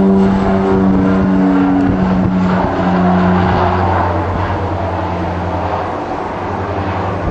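FMA IA-58 Pucará twin turboprop's propellers and engines droning at takeoff power as it lifts off and climbs away. The steady pitched drone dips slightly in pitch a couple of seconds in and fades a little as the aircraft draws away.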